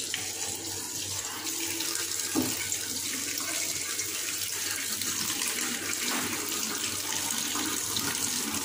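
Cold tap water running onto boiled spaghetti in a perforated steel colander, a steady splashing rush as a hand tosses the strands; the pasta is being rinsed to stop it cooking.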